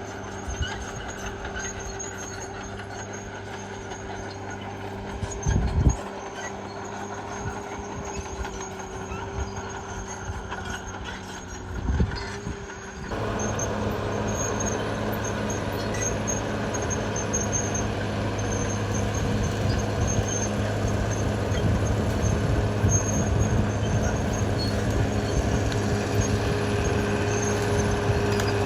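Caterpillar D6R XL bulldozer's diesel engine running steadily, with two heavy knocks about six and twelve seconds in; about halfway through the sound abruptly gets louder and stays so.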